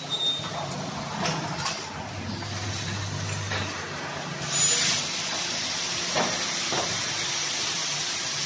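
Automated cutting disc making machine running: steady machinery noise with hissing air and a few short clacks, and a louder burst of hiss about four and a half seconds in.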